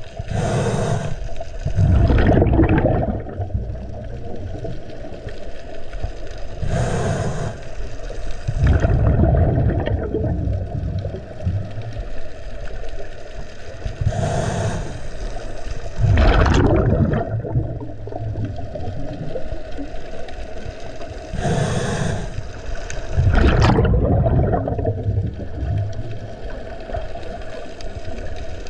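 Scuba diver breathing through a regulator underwater, about four breaths. Each breath is a short hiss of inhalation, then a louder rush of exhaled bubbles, repeating roughly every seven seconds.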